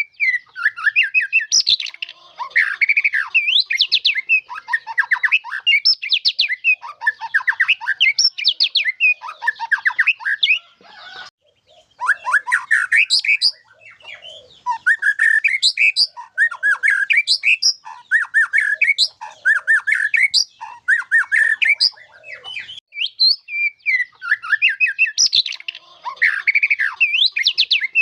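White-rumped shama singing a long, varied song of rapid chattering phrases and sweeping whistles, nearly without pause, with mimicked fill-in phrases; a brief break about 11 seconds in.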